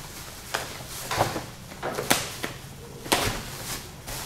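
Plastic bag and bubble wrap crinkling and rustling as they are handled and pulled open, in a string of irregular crackles.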